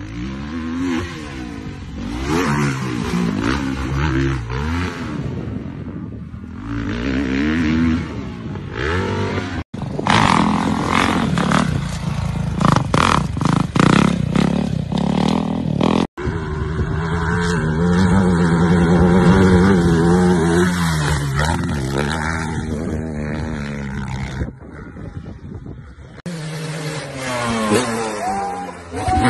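Dirt bike engines revving and accelerating hard, the pitch rising and falling with the throttle. Several separate recordings follow one another, and the sound changes abruptly twice near the middle.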